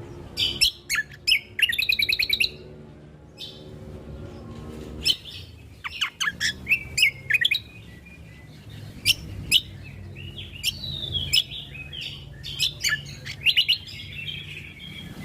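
A cucak kombo (greater green leafbird) singing in bursts of rapid chirps, trills and sweeping whistled notes, over a steady low hum.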